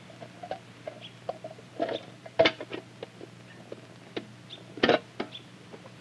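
Wire-mesh live trap holding a ground squirrel being handled: scattered light clicks and rattles, with two sharper knocks about two and a half and five seconds in, over a steady low hum.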